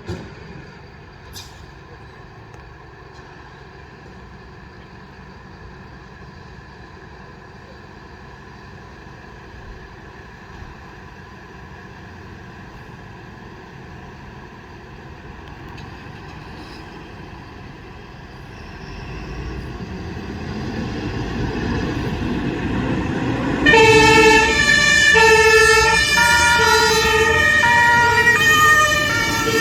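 German fire engine on an emergency run: after a long stretch of low, steady background noise, its engine rumble grows louder from about two-thirds of the way in. Near the end a loud two-tone siren (Martinshorn) starts suddenly, switching between its two notes about twice a second.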